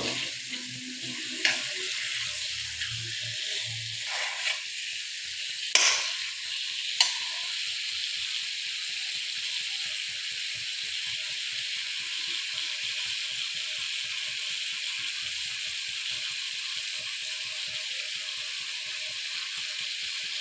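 Fish pieces in spice paste and oil sizzling steadily in a metal kadai. A steel spoon stirs, with a few sharp clinks against the pan in the first seven seconds or so.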